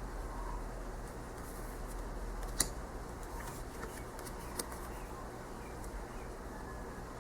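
Tarot cards being handled, with faint ticks and two sharp card clicks, the louder about two and a half seconds in, over a steady low room hum.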